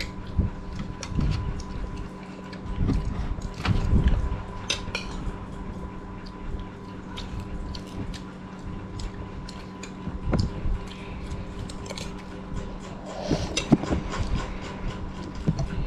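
Metal spoons clinking and scraping against a rice plate and a soup bowl as children eat, many short sharp clicks scattered irregularly, with occasional duller knocks. A steady hum runs underneath.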